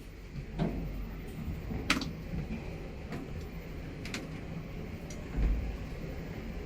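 Hydraulic passenger lift car descending: a steady low rumble from the car, with several sharp clicks and a short low thump about five seconds in.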